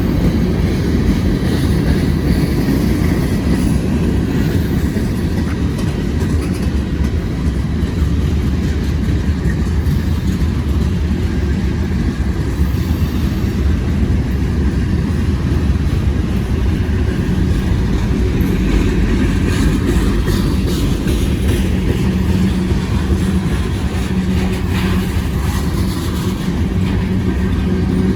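Freight train cars rolling past a grade crossing: a steady, loud rumble of wheels on rail.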